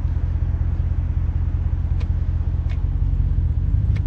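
Dodge Ram 1500's 5.7-litre HEMI V8 idling with a steady low rumble, heard inside the cab. Three faint clicks, about two seconds in, shortly after, and near the end, as the rotary shift dial is turned from Drive back through Neutral and Reverse to Park.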